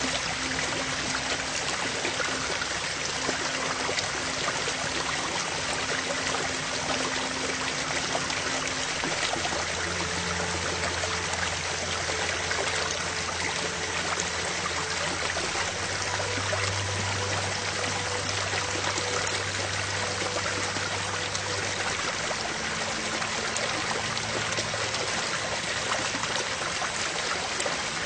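Steady rushing noise like running water, with faint held low tones that shift every several seconds.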